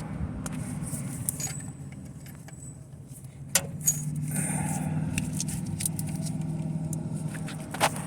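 Metal hand tools and bolts clinking and scraping, a few sharp clinks among them, over a low steady hum that grows louder about four seconds in.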